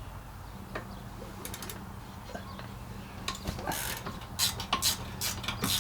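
Clicking and scraping of hand tools working on metal parts, becoming busier and louder about three seconds in, over a steady low hum.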